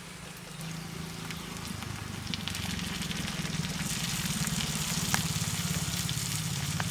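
Chopped tomatoes sizzling in hot mustard oil with fried onion and ginger-garlic paste in a kadai, the sizzle building and getting louder after about two seconds, over a steady low rumble.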